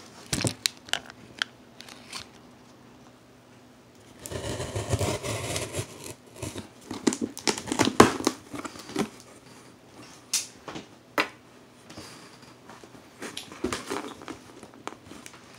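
A cardboard shipping box being opened by hand: crinkling and tearing of tape and packing, in two spells of rustling a few seconds apart, with scattered knocks and clicks of handling.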